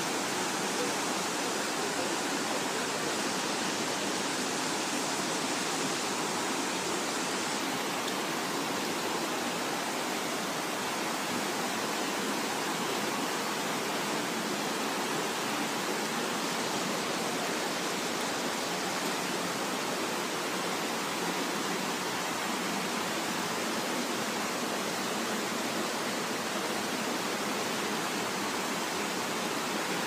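Steady rushing of a mountain stream running over rocky rapids.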